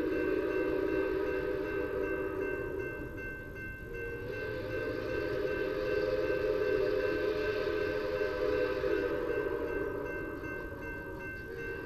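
Steam whistle blowing long, steady blasts of several pitches sounding together: one of about four seconds, a brief break, then a longer one of about six seconds, starting again near the end.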